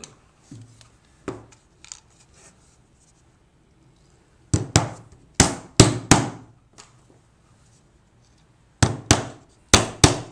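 Claw hammer driving nails into a wooden board: a quick run of about five sharp blows a few seconds in, then after a pause about four more near the end.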